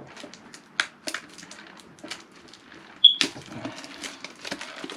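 Hands working at a metal collector's tin to get it open: scattered clicks and taps with light rustling, a brief squeak and a sharp click a little after three seconds.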